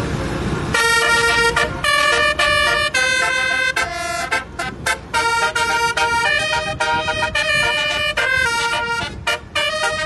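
Telolet basuri multi-tone bus horn playing a quick melody: chords of several steady pitches that change about every half second, with brief gaps between some notes. A short low rumble comes just before the horn starts, under a second in.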